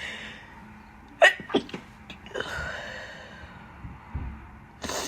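A woman's stifled sneezes: a sharp one just over a second in, quickly followed by two smaller ones, then a breathy exhale, and another near the end.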